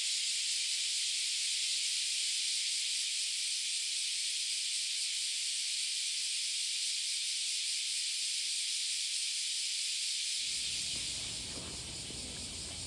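Steady high-pitched shrill of an insect chorus, easing a little about ten and a half seconds in as lower background noise comes in.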